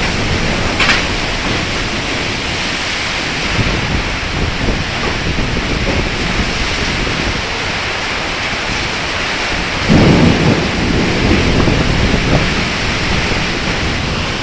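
Heavy rain pouring steadily in a storm, with a loud rumble of thunder breaking about ten seconds in and rolling on for a few seconds.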